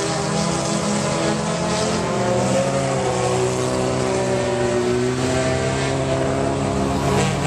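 Small hatchback race car's engine running hard on a dirt oval, its note dipping and rising again as it goes through the turns.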